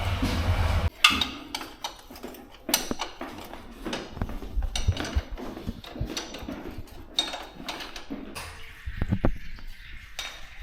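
Metal tools and parts clinking and knocking irregularly as a motorcycle is worked on, after a low hum that cuts off suddenly about a second in.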